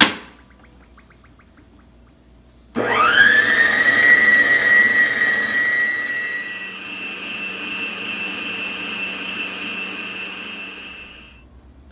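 Electric stand mixer with a wire balloon whisk starting up about three seconds in, its motor whine rising quickly and then running steadily as it beats cake batter. About halfway through the whine steps higher and a little quieter, and it winds down near the end.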